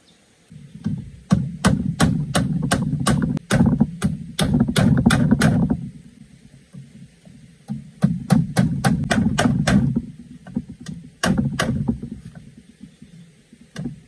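Machete striking bamboo poles: runs of sharp, hollow knocks, about three a second, each with a heavy low thud, in several bursts with short pauses between them.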